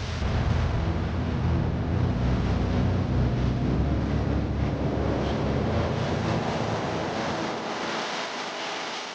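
Honda Megapro single-cylinder four-stroke motorcycle engine running under load on a dirt trail, its pitch rising and falling, with wind buffeting the microphone. The engine sound fades near the end.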